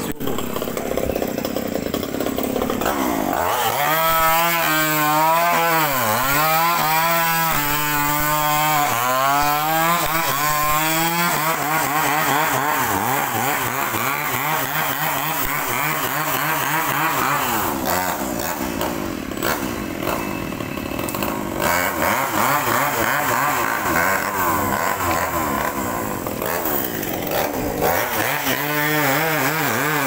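Chainsaw engine running, its pitch repeatedly dropping and recovering as it is revved and loaded, the sound of a saw cutting up a fallen tree.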